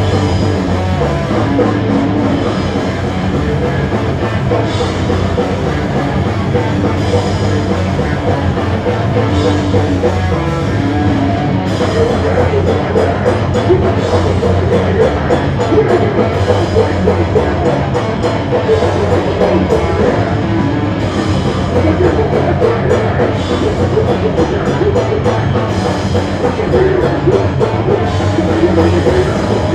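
A heavy rock band playing live and loud: distorted electric guitars, bass and a pounding drum kit, with the vocalist's voice through the microphone.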